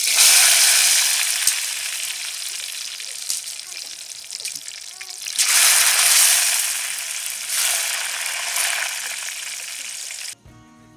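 Sweet potato slices dropped into hot oil in a metal pot, the oil sizzling loudly as they fry. The sizzle flares up at the start and again about five seconds in, fades after each, and cuts off suddenly near the end.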